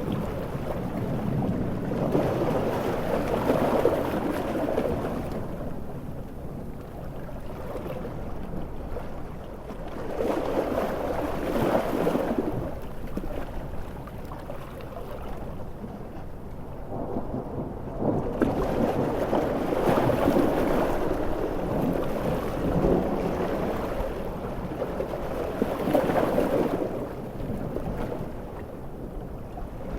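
Coastal storm ambience: heavy rain with large waves surging and rolling thunder, the sound swelling and fading in long surges every several seconds.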